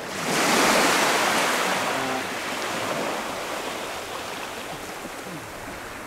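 Small sea wave breaking at the shoreline and washing up the sand: a hiss that swells sharply about half a second in, then fades away over the next few seconds.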